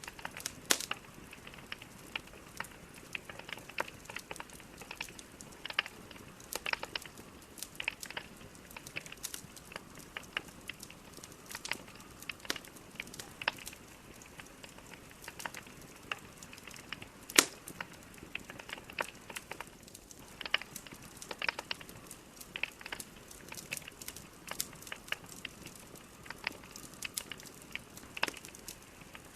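Burning logs crackling in a fireplace: a low, steady hiss with irregular sharp pops and snaps, one louder pop partway through.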